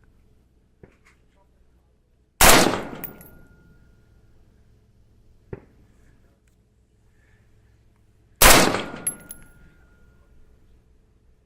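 AR-15 rifle firing .223 Tula ammunition: two single shots about six seconds apart, each followed by a long fading echo with a faint ringing tone. A small click comes between the shots.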